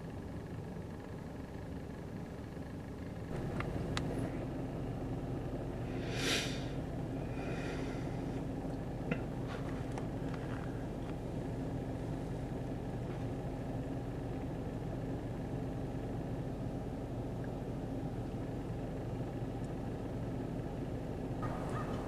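Steady low hum of a car engine idling, heard from inside the car. It grows louder about three seconds in, and there is a brief hiss about six seconds in.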